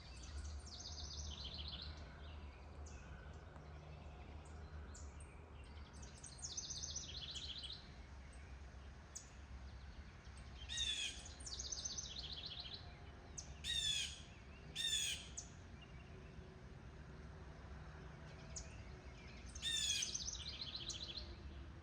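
Wild birds singing outdoors: quick high trilled phrases repeat throughout, and a louder, harsher falling call comes four times, about halfway, twice a few seconds later and near the end. A faint low steady hum sits underneath.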